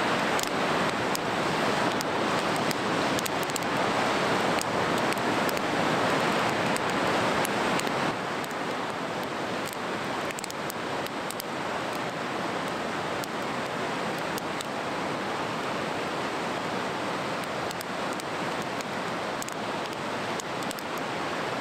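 Steady rushing of the Dōshi River, a clear mountain river, with scattered faint ticks; the level drops slightly about eight seconds in.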